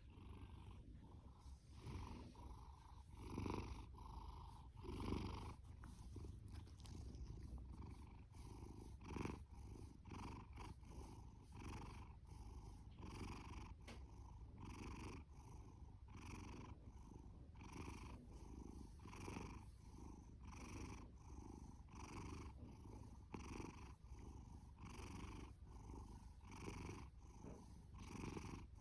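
Domestic cat purring: a steady low rumble that swells and eases with each breath, about once a second.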